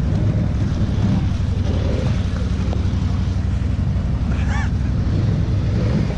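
ATV engine running steadily at a low, even pace.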